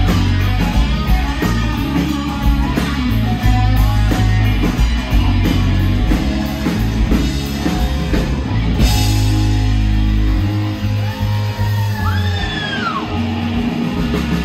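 Rock band playing live through a pub PA, an instrumental stretch with electric guitar, acoustic guitar, bass and a drum kit. A cymbal crash lands about nine seconds in, and a few high bending notes sound near the end.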